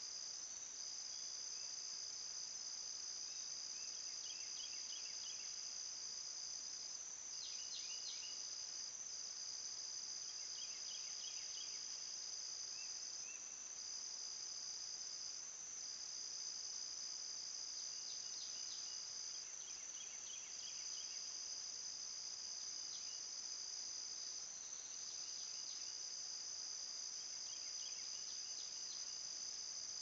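Insect chorus of crickets and similar night insects: a steady high-pitched trill that briefly drops out every few seconds, with short groups of quick, lower chirps every few seconds.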